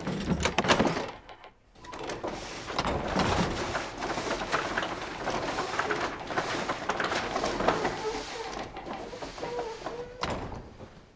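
A hand-worked paper-bag-making machine clattering and clicking as its mechanism is run. There are a few loud knocks at first, then a steady dense clatter, with a few short squeaky tones near the end.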